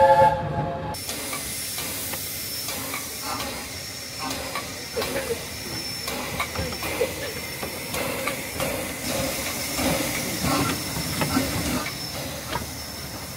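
Narrow-gauge steam locomotive No. 3 Sir Haydn standing with steam hissing, after music cuts off about a second in.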